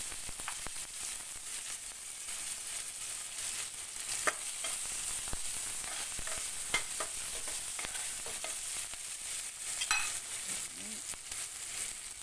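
Sliced red onions sizzling in hot oil in a stainless steel pot, with a spatula stirring them and clicking and scraping against the metal now and then.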